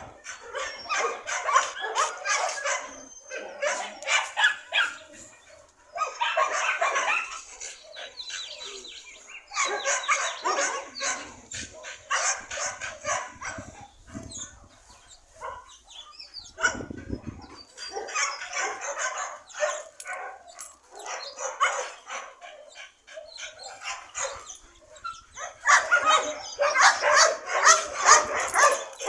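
Dogs barking and yipping in quick runs with short pauses, loudest in the last few seconds.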